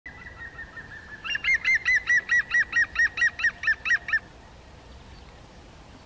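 Middle spotted woodpecker calling: a series of short repeated notes, about five a second, faint at first and loud from about a second in, stopping about four seconds in.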